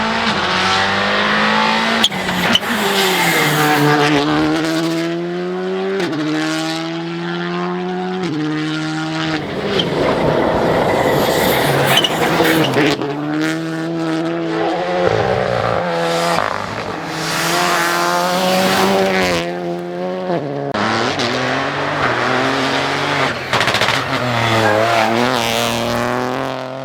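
Rally cars driven flat out on the stages, their engines revving up and dropping back through gear shifts as they pass, in a string of short shots cut one after another.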